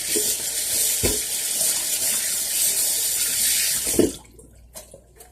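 Kitchen sink faucet running as hands are rinsed under it; the water shuts off about four seconds in.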